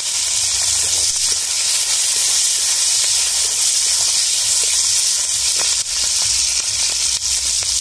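Onion pieces sizzling steadily in hot oil in a steel kadai, stirred with a metal spatula that gives a few faint ticks against the pan.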